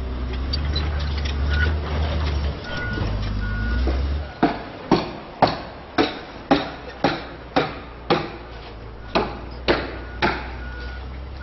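Construction-site sounds: a heavy vehicle's engine rumbling while a reversing beeper sounds. From about four seconds in comes a steady run of sharp strikes, about two a second.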